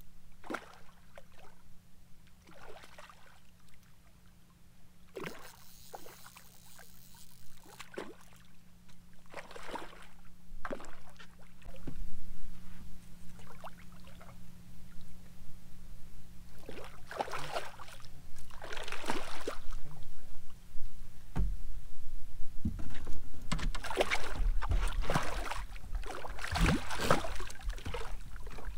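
Water splashing in short bursts as a hooked redfish thrashes at the surface beside a boat. The splashes grow louder and come closer together over the last ten seconds or so as the fish is brought alongside and taken by hand.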